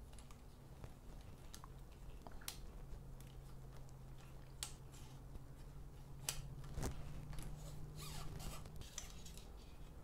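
Scattered faint clicks and ticks of a steel inner cable being pulled and threaded through a handlebar-mounted dropper-post remote lever, over a low steady hum that stops near the end.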